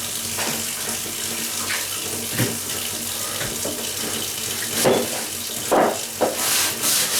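Water running steadily with splashes as a floor-cleaning cloth is dipped and rinsed, several louder splashes coming in the last couple of seconds.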